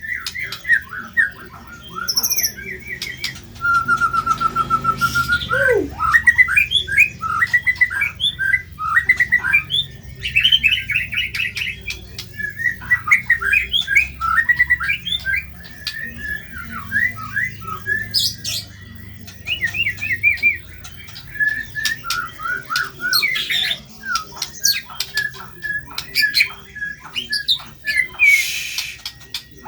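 White-rumped shama (murai batu) singing a long, varied song of rapid chips, trills, harsh squawky notes and whistles, with a held whistle about four seconds in that ends in a falling sweep.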